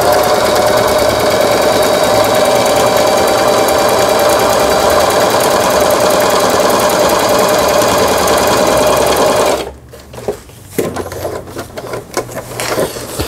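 Singer 3827 electric sewing machine running steadily at speed, stitching a buttonhole; this is the buttonhole function the machine was repaired for, now working. It stops abruptly about ten seconds in, followed by quieter handling noises.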